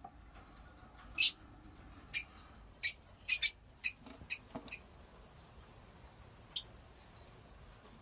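Caged lovebirds giving a run of short, shrill chirps, about eight within a few seconds, then one more a little later.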